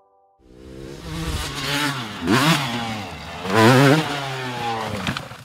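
Dirt bike engine revving hard on a steep hill climb, starting about half a second in and surging twice in pitch. After the second surge the revs fall away as the bike loops out and the rider is thrown off.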